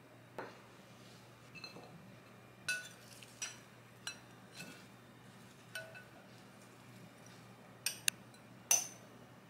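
A glass mixing bowl clinking against a ceramic plate as chopped salad is tipped and scraped out of it: about ten light, ringing clinks spread out, the loudest near the end.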